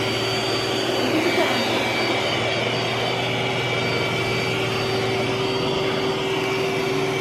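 iRobot Roomba s9+ robot vacuum running, a steady whine of its suction motor over a hiss of airflow while it cleans up scattered rice.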